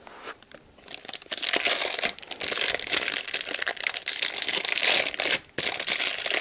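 Clear plastic packaging crinkling and tearing in the hands as it is stripped off a new timing-belt tensioner roller. It starts about a second in and breaks off briefly near the end.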